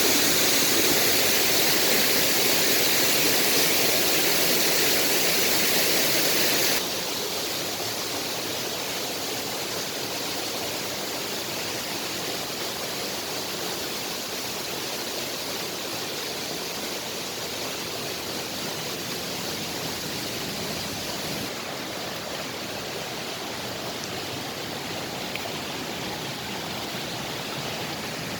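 Rushing water of a mountain waterfall and its stream: a steady hiss that drops abruptly in level about seven seconds in.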